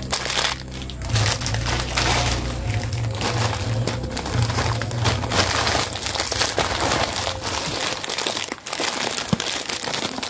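Plastic packaging crinkling and crackling as packets of steel-wool pot scrubbers in clear plastic wrap are handled, with a dense run of crackles throughout.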